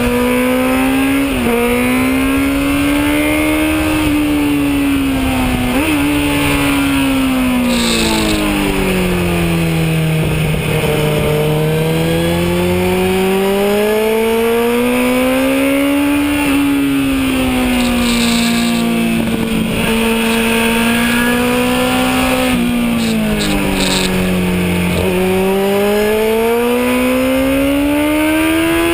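Kawasaki Z1000 inline-four engine at racing speed, its note climbing and falling several times as the bike pulls out of corners and slows into them, with quick dips at the gear changes. A hiss of wind rushes past the fairing.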